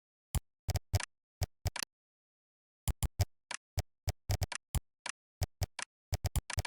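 Computer keyboard being typed on: single sharp key clicks in irregular bursts, with dead silence between them and a pause of about a second after the first few keystrokes.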